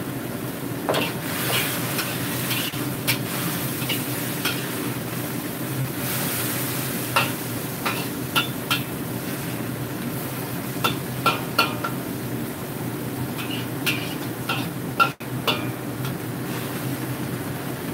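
Bean sprouts and garlic chives sizzling in a wok while a metal spatula stirs them, scraping and clinking against the wok in irregular strokes, over a steady low hum.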